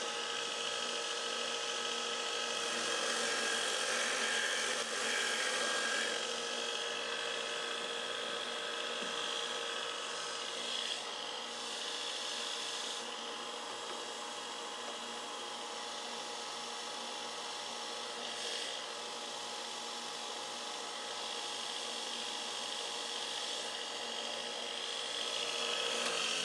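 Powered blade grinder running steadily while steel is ground off the heavy end of a commercial lawn mower blade, to bring the blade into balance.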